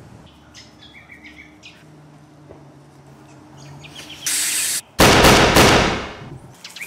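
A person sniffs hard, snorting cocaine off the back of a hand. About five seconds in a loud gunshot goes off and dies away over about a second. Birds chirp faintly before it.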